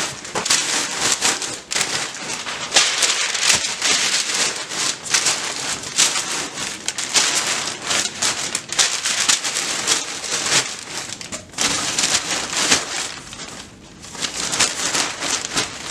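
Crumpled packing paper and bubble wrap rustling and crinkling as hands stuff them into a cardboard box, a steady stream of crackles.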